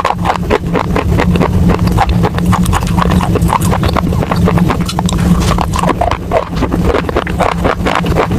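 Baked clay pot pieces being crunched and chewed close to the microphone: a dense run of sharp crunches and cracks, several a second, over a steady low rumble.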